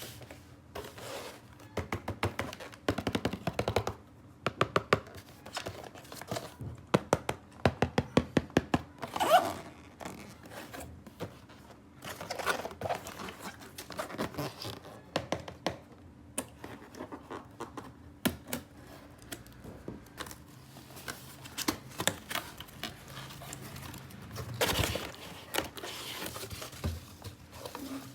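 Plastic toy pieces and packaging handled up close: many sharp clicks and taps, with a fast run of clicking about a third of the way in, plus scraping and some crinkling.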